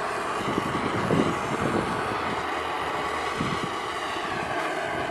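Gas torch burning with a steady roar.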